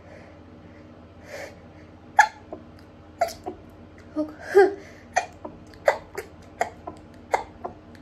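Rapid stifled sneezes from a woman holding her nose pinched shut, brought on by allergies. A quick run of short, sharp, muffled bursts starts about two seconds in, with a louder voiced breath about halfway.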